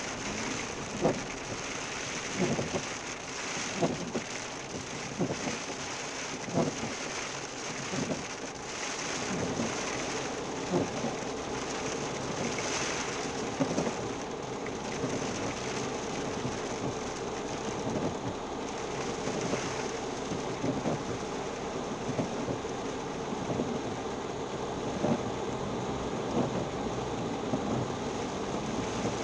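Hailstorm: a steady hiss of hail and rain pelting down, with sharp knocks from larger hailstones striking a hard surface every second or two.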